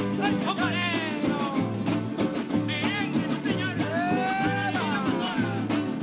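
Live Venezuelan folk music in the golpe style. A small guitar-like string instrument is strummed over a steady low beat about twice a second, with voices singing over it.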